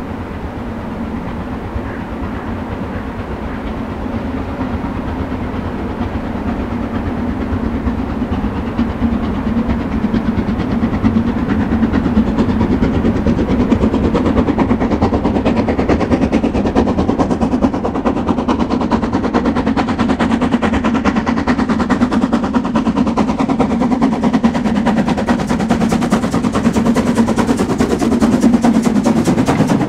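Metre-gauge Harzquerbahn train running. It grows louder over the first half and then stays loud and steady, with a fast clatter over a deep rumble.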